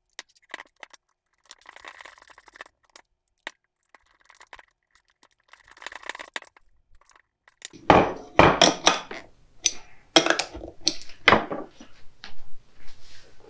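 Nuts and bolts clinking against a mower deck sheave (belt pulley) as they are fitted through its alignment holes: scattered light metal clicks and rattles at first, then a run of louder metal clanks and knocks from about eight seconds in.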